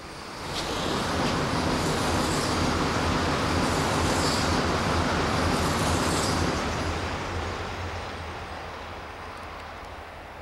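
A train passing close by: a rolling rumble swells about half a second in, stays loud for about six seconds, then fades away.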